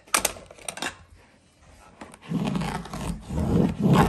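Hands-on carpet work on a wooden stair: a few sharp clicks near the start, then from about two seconds in a run of repeated dull thumps and rubbing, two or three a second, as the runner is pushed and worked into place.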